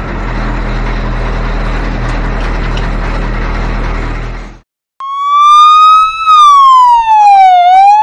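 An electronic siren wailing: a clean tone that rises, falls and rises again. It comes in about five seconds in and is the loudest sound. Before it, a steady rushing noise runs and cuts off about four and a half seconds in.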